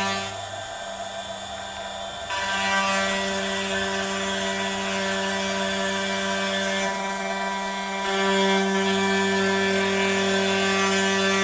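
A 1.5 kW air-cooled CNC router spindle runs with a steady whine while its surfacing bit mills shallow passes across plywood. The sound drops back twice, briefly about half a second in and again around seven seconds in.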